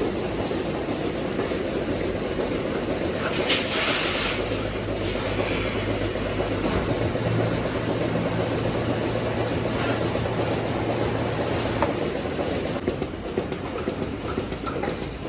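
Steady rumble of running machinery, with a low hum joining in the middle and a short hiss about four seconds in.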